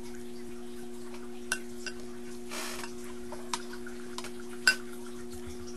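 Metal spoon clinking against a glass of ice cream: a handful of sharp, short-ringing taps, the loudest near the end, over a steady low electrical hum.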